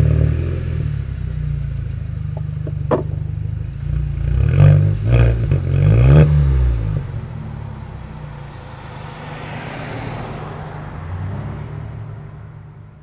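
Exhaust of a 2008 Volkswagen GLI's turbocharged 2.0-litre FSI four-cylinder, resonator deleted, running and then blipped three times in quick succession about four to six seconds in. It then settles to a lower, steadier note that fades near the end, with a sharp click about three seconds in.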